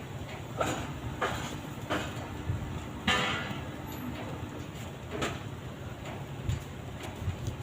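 Metal clanks and knocks of hand tools working on the engine bay parts while the alternator is being removed, half a dozen separate knocks with the loudest about three seconds in, over a steady low rumble.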